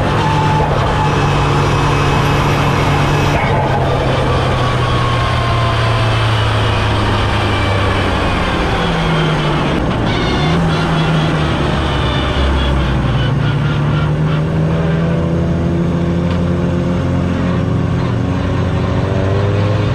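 Mitsubishi Lancer Evolution VII's turbocharged four-cylinder engine running under light load, heard from a camera mounted low on the car. Its pitch sinks gradually over the first half, shifts around the middle, then holds and slowly rises.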